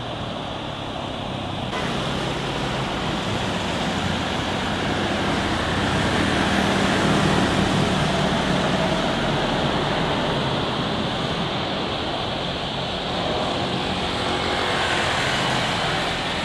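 Jet airliner engine noise: a moment of one aircraft, then an abrupt cut about two seconds in to a narrowbody jet airliner descending on final approach with its gear down. Its engines make a steady noise with a low hum that grows louder toward the middle and again near the end.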